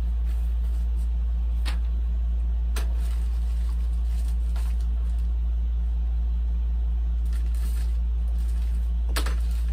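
Steady low hum throughout, with a few brief crinkles of plastic bags and paper being handled: about two seconds in, about three seconds in, and near the end.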